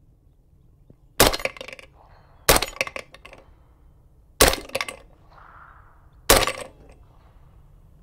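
Four suppressed gunshots from a 300 Blackout AR pistol with a 4.75-inch Mos-Tek barrel. They are fired one at a time, about one and a half to two seconds apart, each a sharp crack with a short trailing tail.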